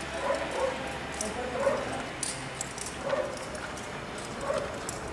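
A dog barking several times, single barks and pairs about a second or so apart.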